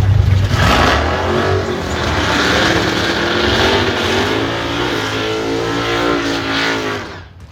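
Two American muscle-car drag racers running hard at full throttle, the engine pitch rising and dipping several times as they pull away. The sound cuts off abruptly about seven seconds in.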